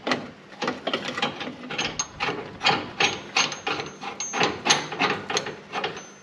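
Irregular run of metallic clicks and knocks, about four or five a second, some with a faint ring, from hand tools working on an aftermarket upper control arm and its bolt as it goes into its mount on a Ford Ranger's front suspension.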